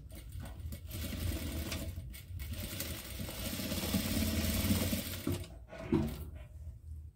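Electric sewing machine running, stitching a short seam across a zipper end through two layers of fabric. It pauses briefly about two seconds in, runs on, and stops about five and a half seconds in, followed by a brief sharp sound.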